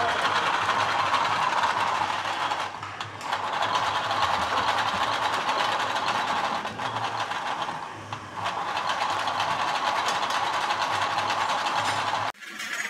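A lathe spinning a stepped coil-winding former, winding copper wire into motor coils: a steady mechanical whirr over a low hum, dipping briefly twice and cutting off abruptly near the end.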